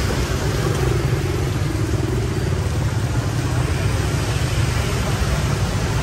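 Steady street traffic: motorbike and car engines running past, a continuous low rumble.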